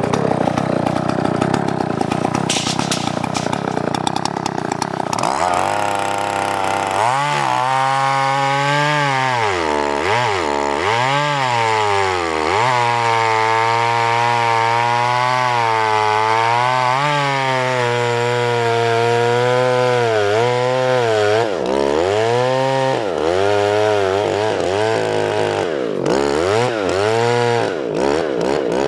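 Two-stroke chainsaw bucking a felled sweet gum log. From about five seconds in the engine runs at full throttle in the cut, its pitch dipping and recovering again and again as the chain bites and bogs in the wood.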